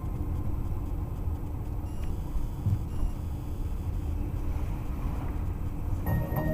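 Street traffic: a steady low rumble of road vehicles.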